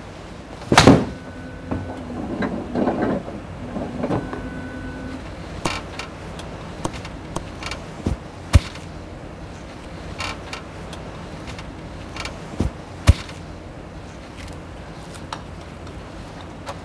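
A golf club striking a ball in a full swing, one sharp crack about a second in, followed by lighter knocks and clicks.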